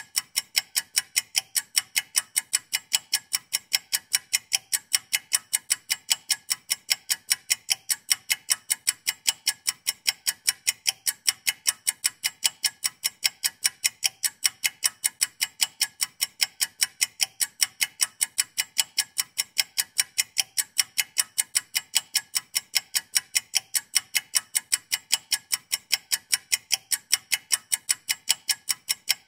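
Ticking clock sound effect counting down a 60-second timer: a steady, even run of sharp ticks.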